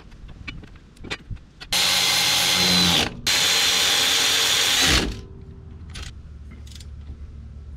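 Milwaukee cordless power tool running in two bursts with a short break between them, driving a fastener on the front steering knuckle. The second burst winds down at the end, and a few light metal clicks follow.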